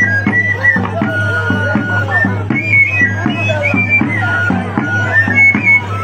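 Andean festive dance music: a high melody line over a steady drumbeat.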